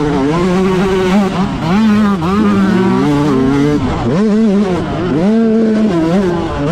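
Two-stroke motocross bike engine at full race pace, its pitch repeatedly climbing and dropping as the throttle is opened and shut through the corners and bumps, with dips about two, four and six seconds in.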